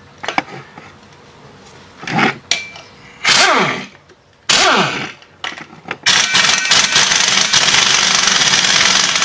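Pneumatic wrench driving jacking bolts into a pulley hub: a few short bursts that spin down in pitch, then a steady run of about three and a half seconds that cuts off near the end as the bolt is run down.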